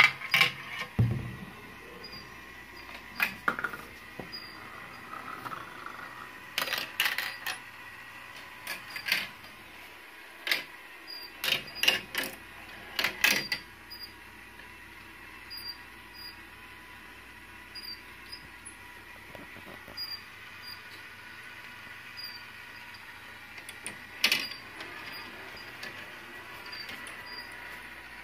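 Marbles clattering through a plastic marble run: scattered sharp clicks and clacks, bunched between about 3 and 14 seconds in and again near 24 seconds. Underneath is a faint steady hum and a light, regular ticking from a motorized marble elevator.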